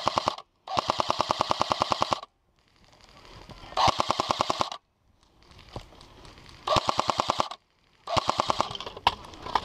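Airsoft light machine gun firing full-auto in short bursts: a fast, even rattle of shots. It gives about five bursts of one to one and a half seconds each, the first already running and cutting off about half a second in, with brief pauses between.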